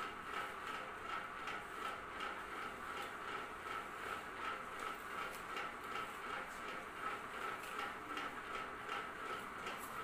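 Ceiling fan running, a steady whir with a regular pulse several times a second.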